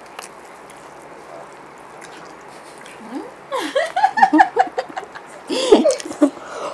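Two women laughing, breaking out about three seconds in over a faint steady hiss.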